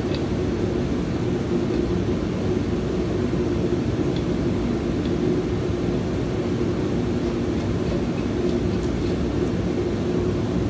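Steady mechanical drone of a running machine, with a low hum that holds even throughout. A few faint small clicks come in near the middle, from light handling of a plastic cup and small parts.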